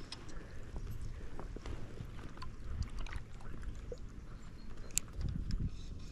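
Footsteps wading through shallow river water, sloshing irregularly, with scattered small knocks, the sharpest about five seconds in.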